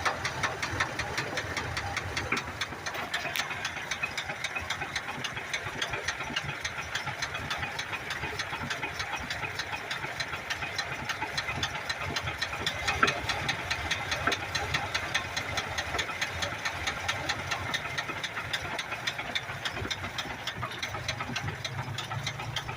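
1982 Ford F-100's 3.8-litre V6 idling with a fast, steady knock at every turn of the crank: a rod knock, a worn connecting-rod bearing.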